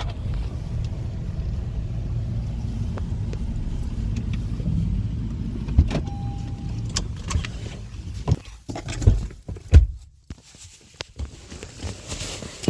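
Car interior rumble, steady and low, dying away about two-thirds through, followed by several sharp knocks and clicks, with a brief steady tone just after the halfway point.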